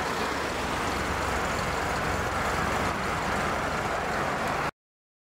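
Cars driving past on a road, a steady mix of engine and tyre noise, which cuts off suddenly near the end.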